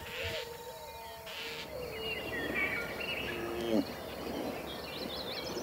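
Birds chirping and twittering over steady outdoor background noise.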